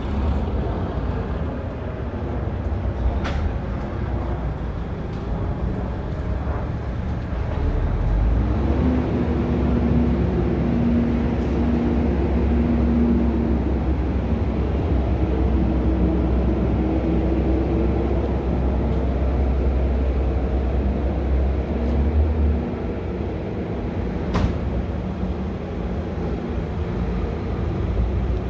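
Steady low rumble of a vehicle engine running, with a hum that comes and goes and a couple of sharp clicks.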